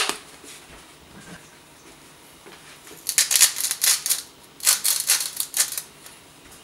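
A single sharp knock, then a hand salt mill being twisted over a plate: two runs of quick, crunchy rasping strokes as the salt is ground, lasting about three seconds in all.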